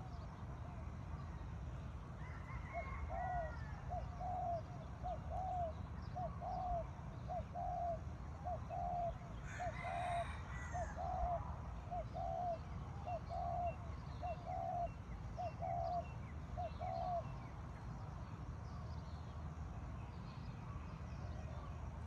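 Morning birdsong: one bird repeats a short, low hooked note about twice a second for some fifteen seconds, and a rooster crows once in the distance about ten seconds in. Small birds chirp faintly throughout.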